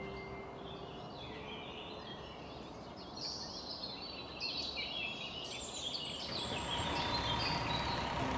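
Cartoon background birdsong: short chirps falling in pitch. About six seconds in, a steady whirring hiss with a faint held tone begins as the logging truck's grabber arm swings out toward the logs.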